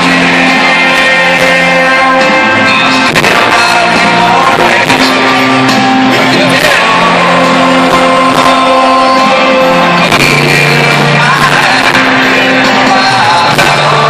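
Live country-rock music played loud through a stadium sound system: a male singer with a full band of guitars, bass and drums, echoing around the arena.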